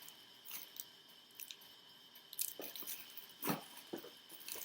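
Light clicks and rustling as switch plate covers are handled and set down, with the loudest knock about three and a half seconds in, over a faint steady high whine.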